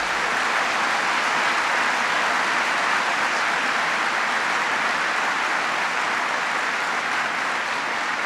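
Audience applauding, a dense steady clapping that eases slightly near the end.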